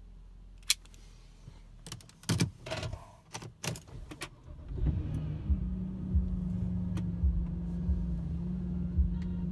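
Clicks and knocks from the key and ignition. About five seconds in, the Porsche Cayenne GTS's V8 cranks, catches and settles into a steady idle.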